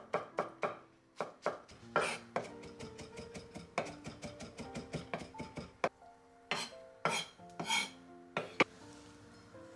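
Kitchen knife chopping soft eggplant flesh on a wooden cutting board: a few separate knocks at first, a fast run of chopping strokes from about two and a half to six seconds in, then slower single strikes.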